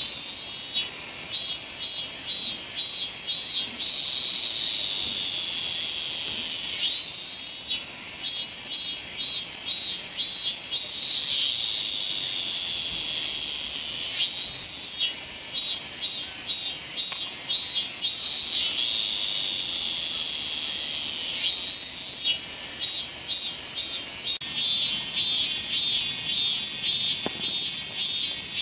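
Robust cicada (minmin-zemi) singing in repeated phrases of evenly spaced pulses, about two a second. Each phrase lasts a few seconds and a new one begins roughly every seven seconds, over a steady high buzz.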